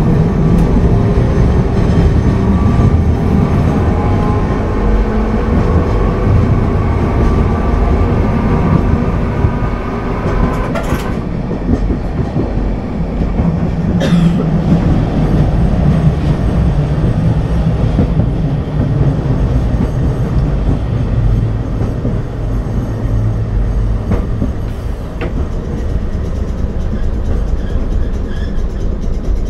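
Nagasaki Electric Tramway streetcar running along its street track, heard from inside the car: a steady low rumble of wheels on rail, with a whine rising in pitch over the first ten seconds or so as it picks up speed, and two sharp knocks a few seconds apart.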